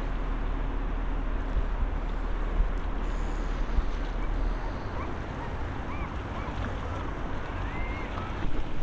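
Wind buffeting the microphone over a steady low rumble, with a few faint short chirps in the second half.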